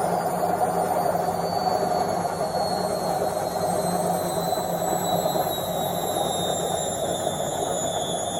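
Washing machine drum in its spin cycle: a steady whirring rush with a low hum, and a thin high whine that slowly falls in pitch.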